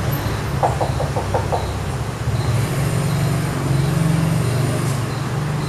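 Low, steady droning ambience of a horror film's soundtrack, with a brief quick run of about six pulses about a second in.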